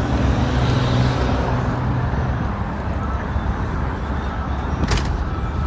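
Street traffic: a motor vehicle's engine running close by, with a steady low hum over a traffic rumble. One sharp click comes near the end.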